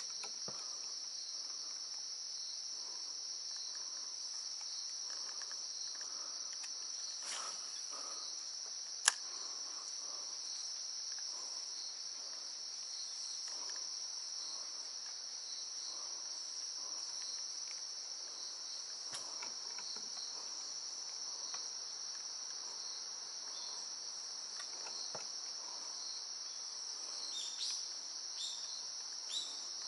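A steady high-pitched insect chorus drones without a break. A single sharp click sounds about nine seconds in, and a few short falling chirps come near the end.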